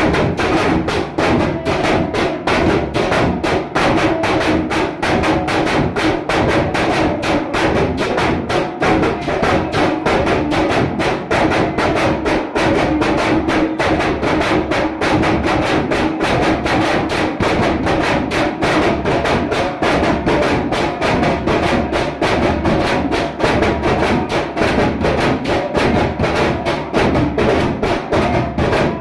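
Fast, even drumming with rapid repeated beats and no break, over a steady hum.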